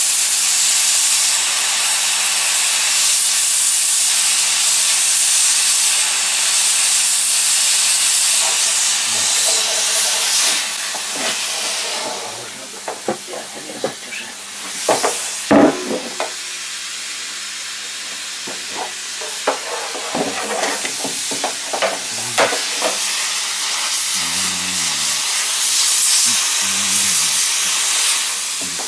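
Steady hiss of a ГЭП-2 hot-air plastic welding gun blowing compressed air out of its nozzle while melting polyethylene filler rod into a barrel seam. About twelve seconds in the hiss drops lower, and a run of clicks and knocks follows.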